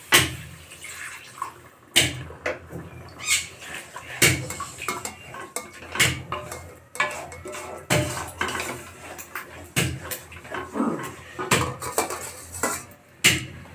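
Wooden spatula stirring and scraping in a metal kadai, with repeated irregular knocks against the pan, as water is worked into the fried masala paste to make the gravy.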